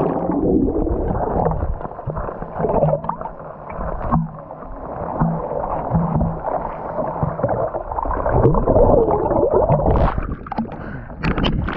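Muffled gurgling and sloshing of seawater heard with the camera held underwater, all sharp sound cut away. Brighter splashes break through twice near the end as the camera nears or breaks the surface.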